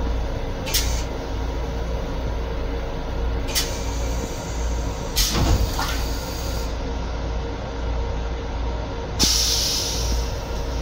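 Stainless steel toilet in a Long Island Rail Road M7 railcar going through its flush cycle: short hisses, then a rinse of water around the bowl about five seconds in, and a louder hiss about nine seconds in. Underneath runs the steady rumble of the moving train.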